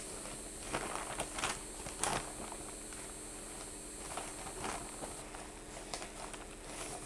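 Quiet room noise with a steady faint hum, broken by a few short clicks and rustles, most of them between about one and two seconds in.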